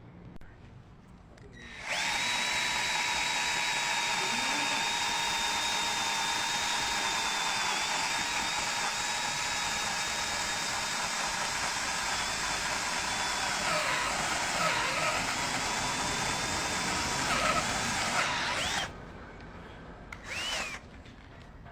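Ken 12V cordless drill driver running at speed for about seventeen seconds, a steady high whine whose pitch sags briefly twice as the bit takes load near the end, then stops suddenly. The drill gets through the test without trouble.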